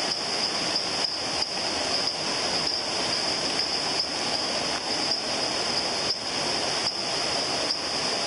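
Waterfall's rushing water, a steady roar, with a constant high-pitched hiss above it.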